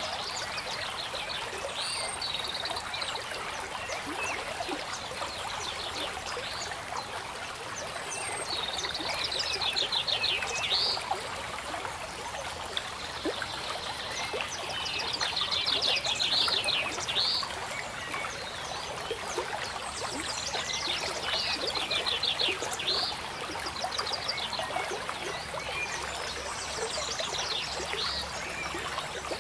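Steady trickle of running water with a high trilling call that comes back in short bouts every few seconds, like a nature soundtrack of a stream with frogs or birds.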